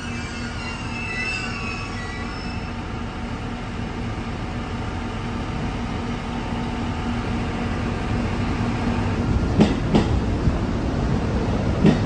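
A Suigun Line KiHa E130 diesel railcar train squeals faintly on its wheels as it comes to a stand, with a steady hum under it. From about nine and a half seconds a train passes close by, its wheels clacking over the rail joints in pairs, loudest near the end.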